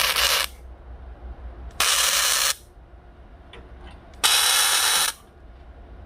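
Three short electric welding tacks, each a crackling hiss that starts and stops abruptly, fixing a threaded bolt to a steel stove door.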